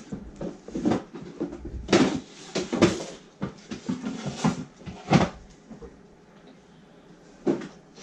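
Hands handling a play-dough figure on a tabletop: irregular knocks, taps and rubbing, loudest about two to three seconds in, then quieter before one more knock near the end.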